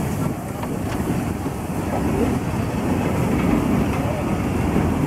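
Metre-gauge heritage train's wagons and coaches rolling slowly past, a steady low rumble of wheels on the rails that builds slightly, with a few light clicks in the first second.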